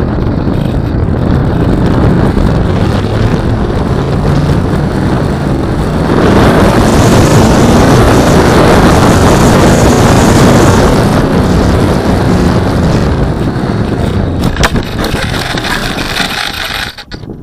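Wind rush and the hum of a Skyhunter FPV plane's pusher propeller, heard through its onboard camera's microphone as it comes in low to land. About six seconds in it turns into a louder, rough rumble as the plane touches down and rolls along a gravel dirt strip. It then eases off as the plane slows to a stop, and cuts off suddenly near the end.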